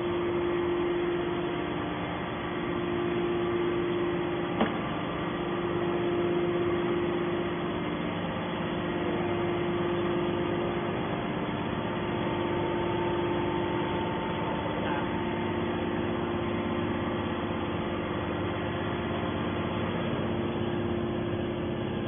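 Steady mechanical hum with a held tone, typical of a metal scrap baler's hydraulic power unit (electric motor and pump) running while the rams stand still. One short click about four and a half seconds in.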